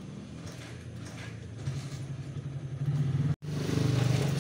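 A motor vehicle engine running with a steady low hum, growing louder about a second and a half in and cutting out for an instant just past three seconds.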